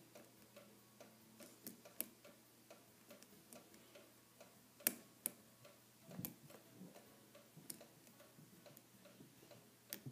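Lock pick and tension tool working the pins of a brass Castor Musqué CL lock cylinder held in a false set by its security pins: faint small clicks and scratches, with a few sharper clicks, the loudest about five seconds in.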